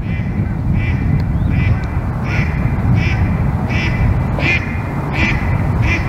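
A bird calling in a steady series of short calls, about one every 0.7 s, over a heavy low rumble of wind on the microphone.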